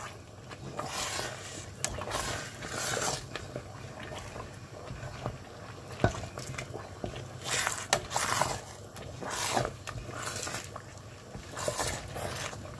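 Wooden spoon stirring and scraping thick, bubbling xalwo in a steel pot, in uneven strokes every second or so, with a couple of sharp knocks of the spoon against the pot.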